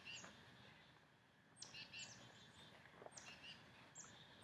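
Near silence with faint bird chirps: about five short, high calls scattered through, each falling quickly in pitch.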